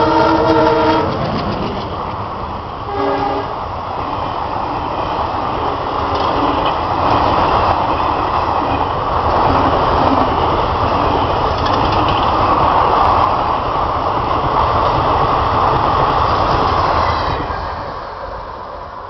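Indian Railways WDM-3A diesel-electric locomotive sounding its horn, the blast cutting off about a second in, then a second short honk around three seconds. The express then rushes past at speed with the rumble and clickety-clack of its coaches, dying away near the end.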